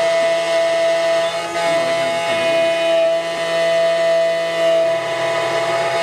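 Spindle motor of a SEC E9 automatic key cutting machine running with a steady whine as its cutter mills an HON66 key blade.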